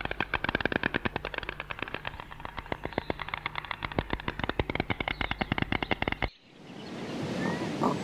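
White stork clattering its bill: a fast run of sharp clicks, about ten a second, that cuts off suddenly about six seconds in, after which a steady outdoor hiss rises.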